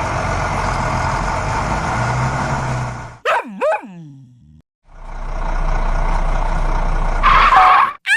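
Steady mechanical running noise that is cut off about three seconds in by two quick swooping squeals. The noise starts up again about five seconds in, and a short higher-pitched tone sounds just before the end.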